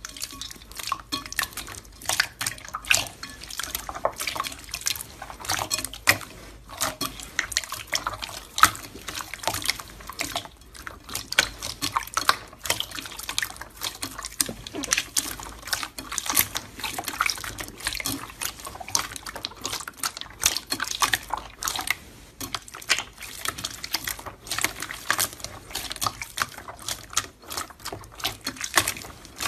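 Hands squishing and kneading glossy slime, giving wet, sticky popping and crackling. The clicks come several a second, at uneven intervals.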